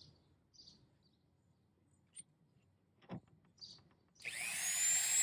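A few bird chirps and a single click, then near the end a Dremel 4000 rotary tool fitted with a ceramic grinding bit is switched on and spins up free, its whine rising quickly and holding at full speed.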